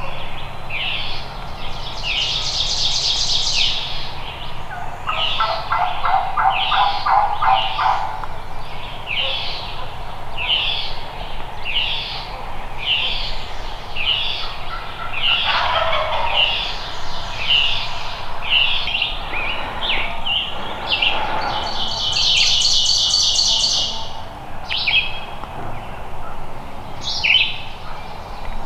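Songbirds singing in spring woods. One bird repeats a short, high, down-slurred note a little more than once a second, and other birds add buzzy trills. A lower, rapid rattling call sounds for a few seconds early on.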